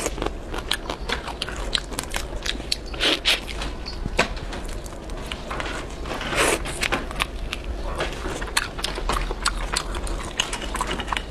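Boiled crayfish shells cracking and crackling as they are peeled by hand, with biting and chewing and a longer slurp about six seconds in as the crayfish is put to the mouth.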